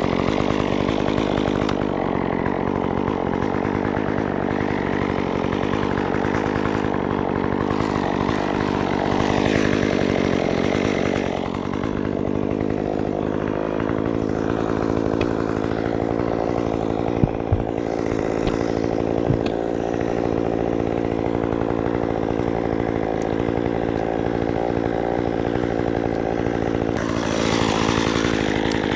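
Chainsaw engine idling steadily, with a few sharp knocks in the middle.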